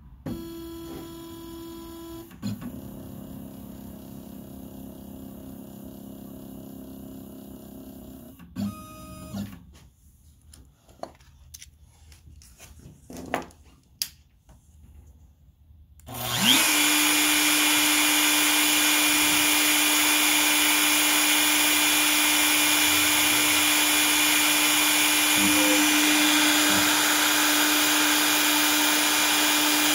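CNC stepper motors whine in steady tones as the gantry moves, with a few scattered clicks. About 16 seconds in the trim router spindle spins up with a rising whine, then runs steadily at full speed with a constant hum and high whine.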